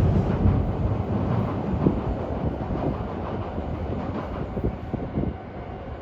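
Electric train's wheels clattering over the rail joints of the junction's points: irregular knocks over a low rumble that fade away toward the end as the train moves off.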